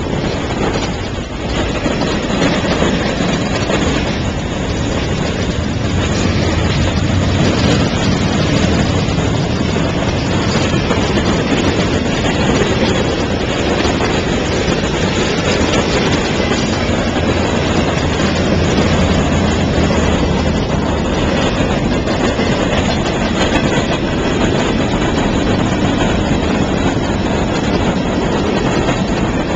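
Freight train cars, autoracks and tank cars, rolling steadily past on the rails: continuous loud wheel-and-track noise with no let-up.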